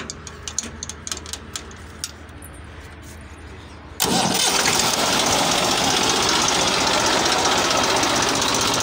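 Massey Ferguson 1035 DI tractor's three-cylinder Simpson S324 diesel engine running. At first it is faint, with a few light clicks. About four seconds in it suddenly becomes much louder and then runs steadily.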